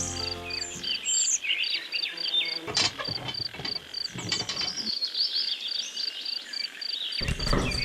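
Crickets chirping in steady high pulses, about four a second, with other short chirping calls over them. A low rumble comes in near the end.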